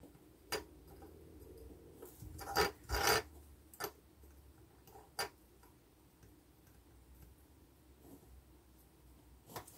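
Faint scrapes and small knocks of a soldering iron tip and solder wire against a small circuit board as diode leads are soldered, a handful in the first five seconds and one near the end, over a faint low hum.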